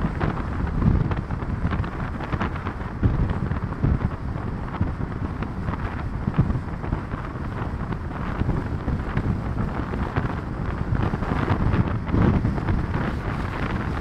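Wind buffeting the microphone of a moving vehicle, with the vehicle's running noise underneath; the rumble rises and falls in gusts.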